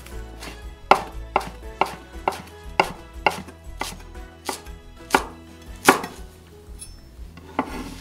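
Chef's knife slicing a stack of perilla leaves into thin strips, each stroke knocking on a wooden cutting board about twice a second, with one last cut near the end.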